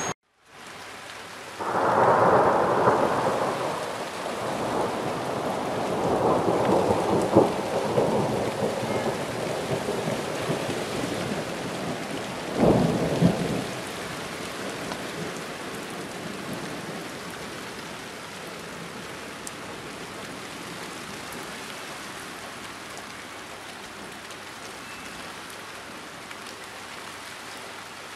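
Thunder rolling in about two seconds in and rumbling for some twelve seconds, with a sharp loud crack a little before the middle. It then fades into steady rain.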